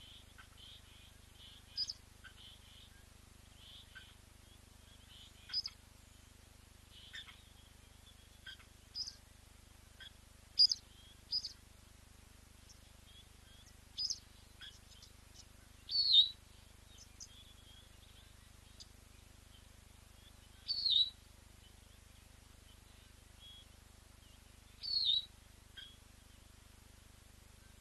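Short, high bird chirps every second or two. The loudest are a few sharp calls that slide downward, in the second half.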